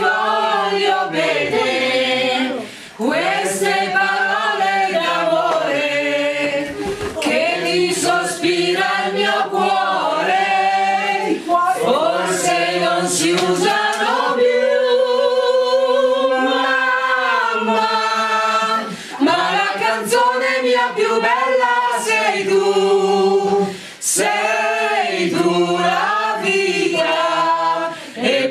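A small mixed group of men and women singing together a cappella, in sustained melodic phrases with a long held note near the middle and short breaks for breath between phrases.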